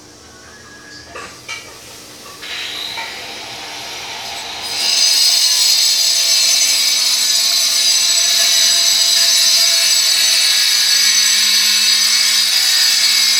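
Loud steady whine and hiss of an electric motor, an appliance or power tool, switching on about five seconds in, after a few faint knocks.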